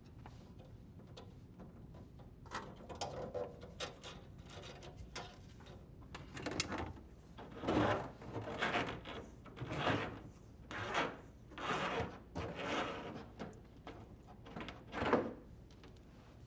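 Dishwasher drain hose being pulled through the hole in the sink cabinet wall: a dozen or so short rubbing, sliding swishes, about one a second, starting about two and a half seconds in.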